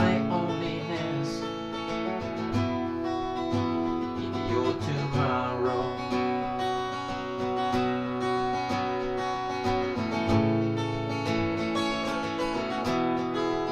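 Acoustic guitar strummed in a steady rhythm, playing the instrumental break between verses of a folk song.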